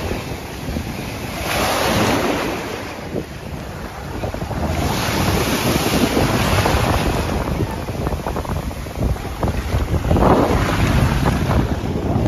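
Small sea waves breaking and washing up the shore, surging in three times, with wind buffeting the microphone.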